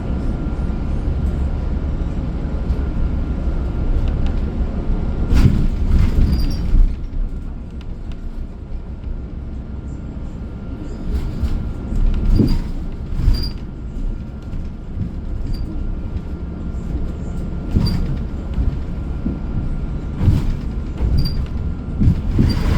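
Steady low rumble inside a moving transit vehicle, with short knocks and rattles every few seconds.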